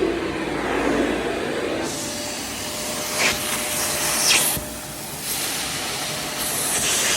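AmazonBasics bagless vacuum cleaner running with a steady hiss. Its sound rises and falls as the nozzle is worked over fabric curtains, with two brief louder surges a little past the middle.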